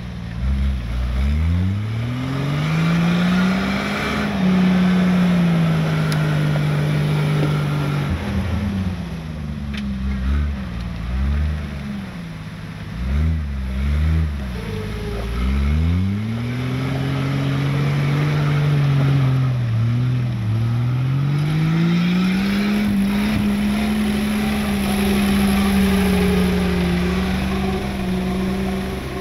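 A car engine revving up and down under load, with a quick run of rises and falls in the middle and long stretches held at higher revs.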